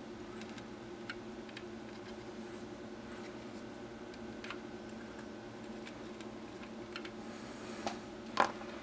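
Faint ticks and clicks of a soldering iron tip and desoldering braid against a circuit board while solder is wicked off a small surface-mount capacitor, over a steady hum. A sharper clack comes near the end, the loudest sound here.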